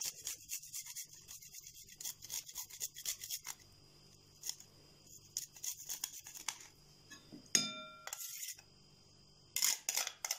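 Garlic clove rubbed against a small stainless-steel hand grater, a quick run of rasping strokes for the first three seconds or so, then slower, scattered scrapes. About two-thirds of the way through comes a short metallic ring, and near the end a metal spoon scrapes the grated garlic off the grater.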